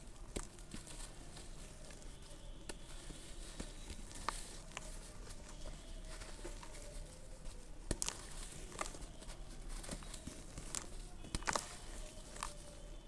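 Clumps of red dirt crumbling and dropping onto a floor: an irregular run of soft crunches and small crackles, with a few sharper cracks near the middle and toward the end.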